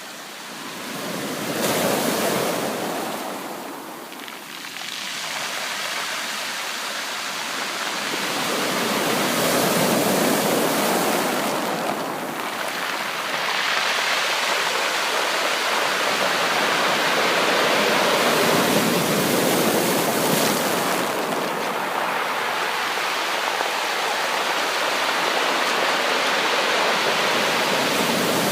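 Sea waves breaking and washing on the shore: a steady rushing surge that swells about two seconds in, eases briefly, then builds again and holds.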